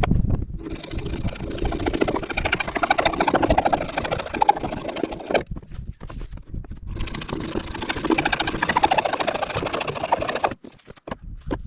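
A power driver runs in two long bursts with a fast rattling hammer, driving screws to mount a breaker box onto wooden boards.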